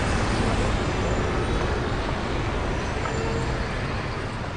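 Street traffic: a van drives past close by, its engine and tyre noise slowly fading as it moves away, over the steady hum of city traffic.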